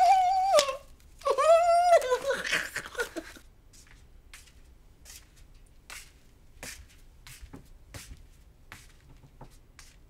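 A woman's gleeful, high-pitched drawn-out cries, twice in the first three seconds. Then soft, unhurried footsteps of slippers on a wooden floor, about one step every half to three-quarters of a second.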